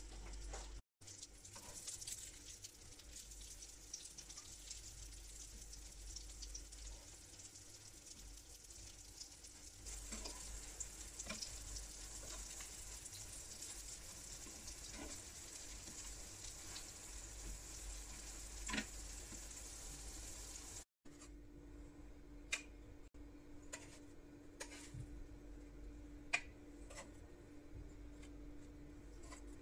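Brinjal (aubergine) slices sizzling as they shallow-fry in oil in a pan, a steady hiss. After a cut about two-thirds of the way through, the sizzle is quieter and sharp metal clicks come from tongs against the pan and plate.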